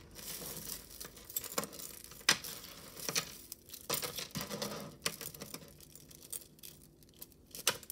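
Costume jewelry being handled in a pile: metal chains and plastic beads clinking and rustling, with scattered sharp clicks, as a plastic beaded necklace tangled with a chain is pulled free.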